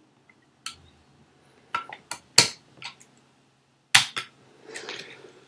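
Metal lock-picking tools worked in an ERA Fortress lever lock, giving a series of separate sharp metallic clicks and clinks.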